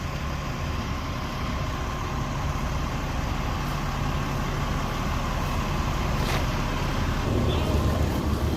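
Heavy truck engine running steadily at a concrete pour, with a constant low hum that grows a little louder in the last second or so.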